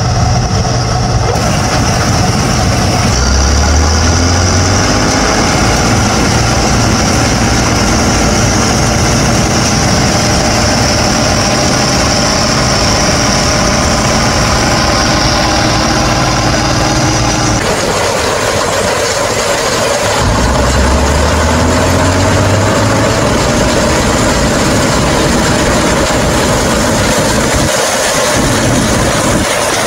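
Bizon combine harvester running steadily as it works the field, a continuous engine and machinery sound. The sound changes abruptly about 18 seconds in, then carries on at the same level.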